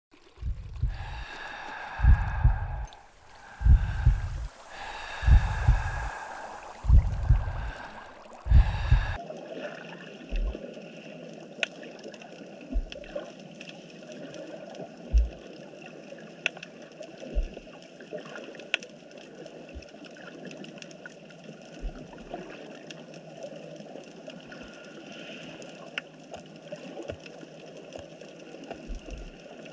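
A low thump about every second and a half under steady held tones, which stops abruptly about nine seconds in. Then underwater ambience from a camera on the seabed: a steady hiss of moving water with scattered sharp clicks and a few soft low thumps.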